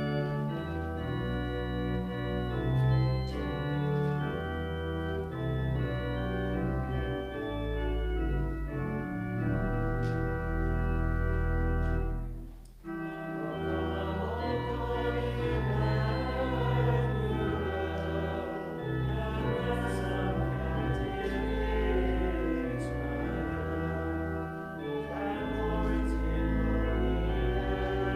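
Church organ playing a hymn in sustained chords, with a short break about twelve seconds in before the playing resumes.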